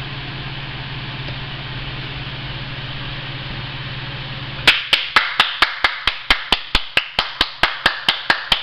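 A steady hum, then about halfway in a person starts clapping hands quickly and evenly, about five claps a second.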